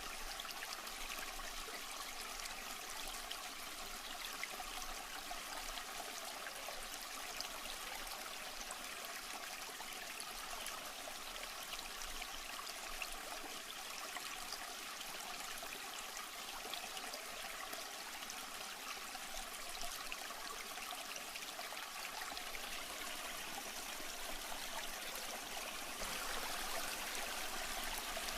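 Aquarium water trickling and splashing steadily, as from a filter's return flow, growing a little louder near the end.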